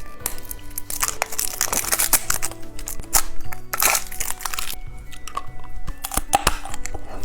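Plastic candy packaging crinkling and crackling in dense clusters of sharp crackles, over steady background music.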